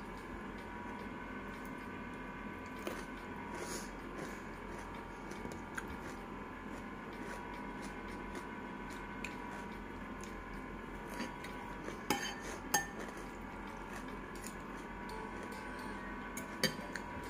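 Metal spoon and fork clinking and scraping against a bowl now and then while eating noodles, with a few sharper clinks about twelve seconds in and again near the end. A steady hum runs underneath.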